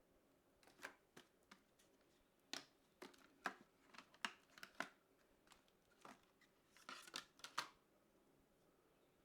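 A quick, irregular series of light clicks, taps and rustles from hands handling computer parts and their packaging, starting about a second in and stopping near the end.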